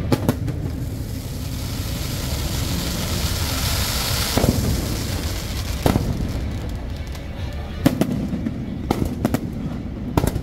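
Large fireworks show: a continuous rumble and crackle of bursting shells, with sharp bangs scattered through. A hissing swell rises around the middle, and several bangs come in quick succession near the end.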